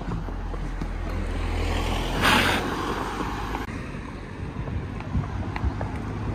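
Wind buffeting the microphone, a steady low rumble, with a short breathy burst about two seconds in.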